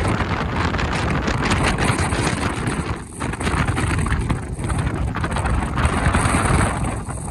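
A person snoring: rasping noisy breaths, broken by a short pause about three seconds in and another near the end.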